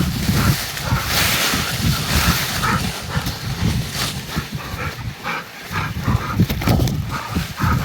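Hunting dog whimpering in short repeated whines, over wind buffeting the microphone.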